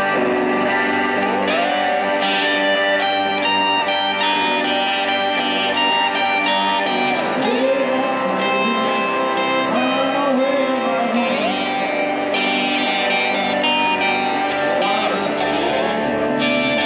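Two electric guitars playing live through amplifiers, loud and steady, with sustained ringing notes and a few bent notes.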